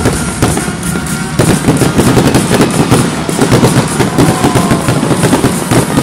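Fireworks going off over music: a few scattered bangs, then from about a second and a half in a dense rapid crackling of many bursts in quick succession.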